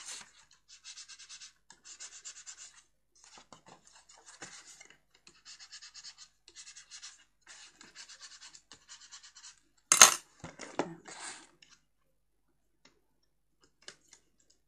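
Bone folder rubbing back and forth over taped corners of cardstock, a run of short scraping strokes several a second: burnishing the tape down so its backing will come off easily. About ten seconds in, one louder, brief crackling rustle of the card being handled.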